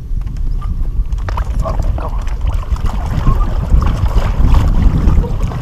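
Wind buffeting the microphone as a steady low rumble. Faint, irregular small ticks and chirps begin about a second in.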